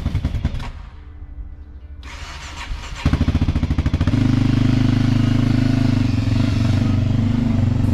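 Honda Dominator NX650's single-cylinder four-stroke engine being started: a short burst of rapid cranking about three seconds in, then the engine catches and runs steadily.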